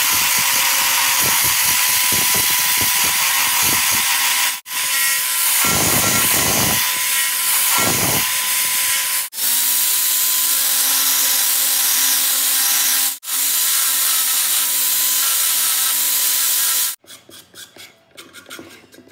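Handheld rotary power sander with a foam-backed disc grinding against wood: a loud, steady hiss over a motor whine, broken by several abrupt cuts. Near the end, quieter scraping and small ticks of a hand chisel paring wood.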